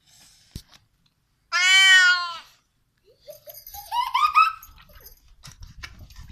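Cat meowing: one loud, drawn-out meow, then a quick run of short meows that each rise in pitch. A brief click comes just before, and a low rumble near the end.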